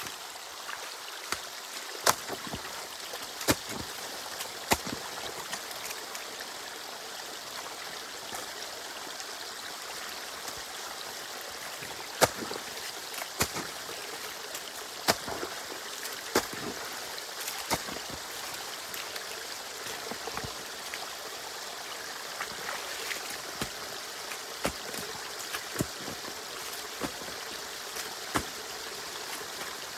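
Water running and trickling steadily through a drainage canal where a beaver dam has been broken through. Irregular sharp knocks and clicks sound over it, about once every second or two.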